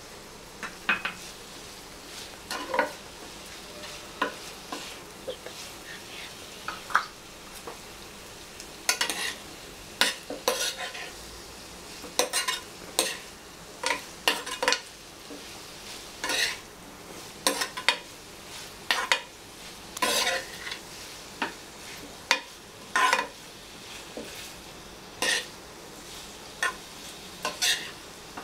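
A spatula stirring and scraping sauced fried cauliflower around a frying pan in irregular strokes, about one a second, over a steady low sizzle as it stir-fries.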